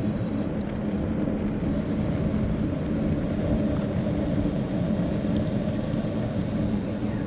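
Steady road and wind noise of a folding electric bike rolling down a hill: tyres running on asphalt with wind on the microphone, a low, even rumble throughout.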